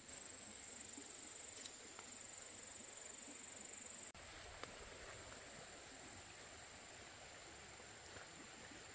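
Faint, steady high-pitched insect trill, with a few soft clicks and a brief dropout about four seconds in.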